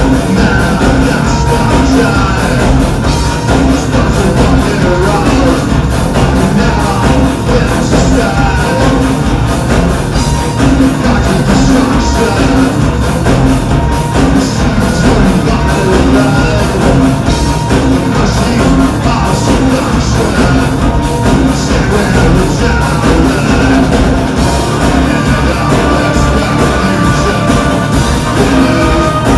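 Industrial metal band playing live: distorted electric guitar, keyboards and drums in a steady driving beat, with a singer's vocals over them.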